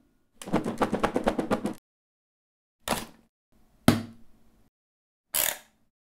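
Hard plastic of a Moldex earplug dispenser station being handled: a ratcheting rattle of many quick clicks lasting over a second as the earplug bottle is fitted into its wall bracket, then two knocks as it is pressed home. Near the end comes a short rasp from the dispenser's mechanism.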